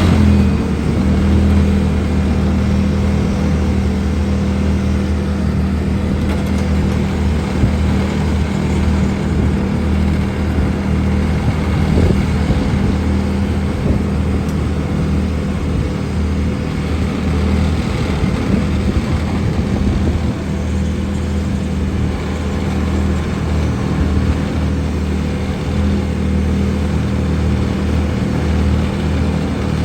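Road-paving machinery engine running steadily at a constant speed, a loud, even low hum.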